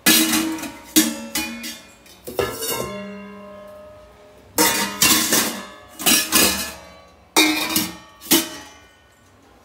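Stainless steel bowls clanking and ringing as they are set back into a wire drawer basket. There are about a dozen sharp knocks in irregular groups, each leaving a metallic ring that dies away.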